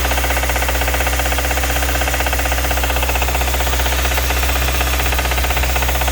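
2015 Kia Optima EX's direct-injection (GDI) four-cylinder engine running steadily, with a fast, even ticking clatter over a low hum: the strange engine noise.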